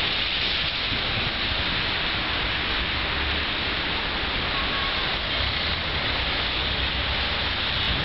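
Steady hiss of blizzard wind and car tyres on a snow-covered road, with gusts rumbling unevenly on the microphone.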